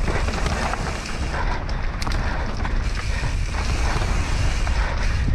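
Wind buffeting the microphone and tyres rumbling over a dirt trail as a Propain Tyee enduro mountain bike rolls downhill, with a few short rattles about one and a half to two seconds in.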